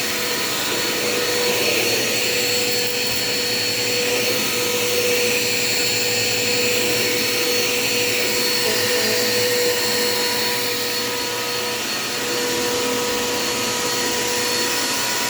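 Dirt Devil Quick Power vacuum cleaner running steadily.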